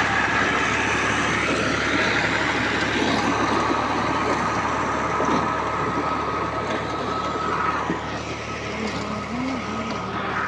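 New Holland tractor's diesel engine running steadily under load while its rear rotary tiller churns the soil, with a steady high whine for a few seconds in the middle. The sound grows a little fainter near the end.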